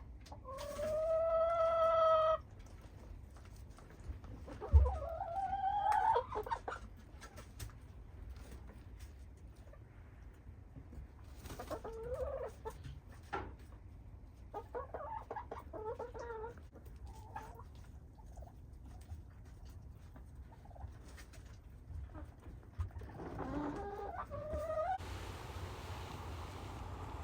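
Domestic chickens calling: a long held call about a second in, a rising call around five seconds, then scattered softer clucks and calls. A steady rushing noise comes in near the end.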